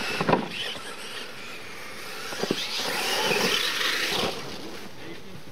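Losi LMT electric RC monster trucks racing: their motors and geared drivetrains whine as they rev up and ease off. A couple of sharp knocks come from the trucks hitting the ground. The whine is loudest for a couple of seconds near the middle, then fades.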